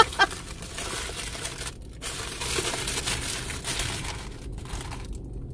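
Paper sandwich wrapper crinkling and crackling as it is pulled open and handled around a breakfast sandwich, with brief pauses in the rustling.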